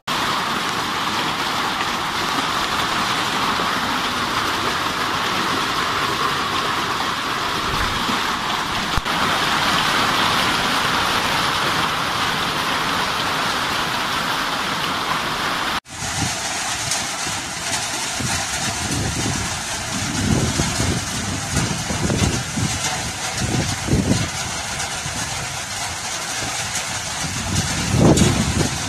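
Steady hiss of heavy rain pouring down during a hailstorm. About 16 s in it cuts to another recording where the downpour goes on, with irregular low rumbles.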